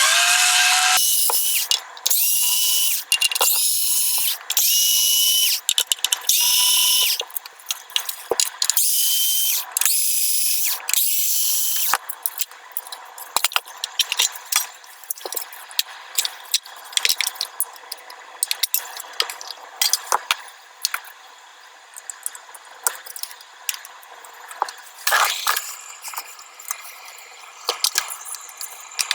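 Small electric screwdriver whirring in a string of short runs, driving screws as the amplifier is put back together. After about twelve seconds it stops, leaving small clicks and rattles of parts being handled.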